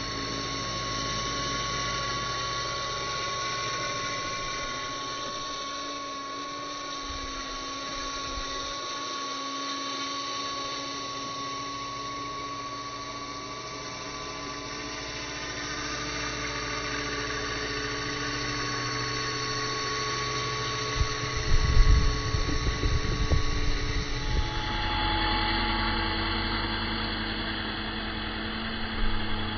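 Small ERA C186 radio-controlled helicopter in flight: the steady, high whine of its electric motor and the whir of its rotor, its pitch shifting a couple of times. About two-thirds of the way through, wind buffets the microphone in gusts.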